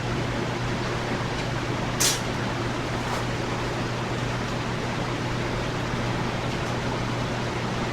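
Electric shop fan running steadily, a wide rushing air noise over a constant low motor hum, making a hellacious noise. A single sharp click sounds about two seconds in.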